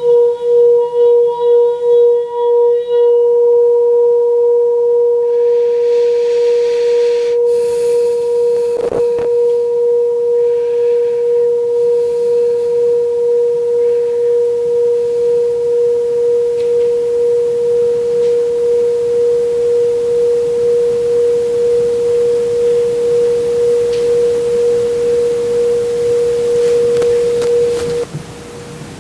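Singing bowl rubbed around its rim with a mallet, its single low hum pulsing, then left to ring on its own as a steady tone that slowly fades and stops near the end.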